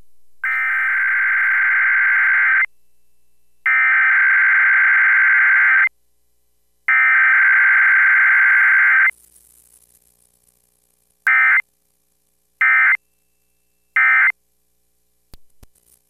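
Emergency Alert System weekly test data bursts broadcast over FM radio: three long bursts of the SAME header's data tones, each about two seconds, a second apart. After a short pause come three brief end-of-message bursts.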